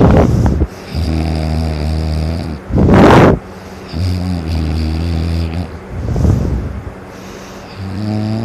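A sleeping dog snoring loudly, like a buzz saw. A harsh rasping breath comes about every three seconds, and each is followed by a longer, evenly pitched buzzing breath.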